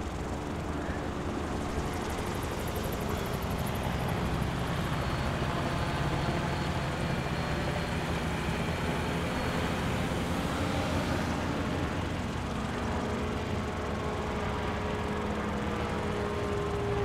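Small ultralight rotorcraft engines running steadily, a mechanical drone with several held tones. Near the end a higher engine tone creeps up in pitch and grows louder.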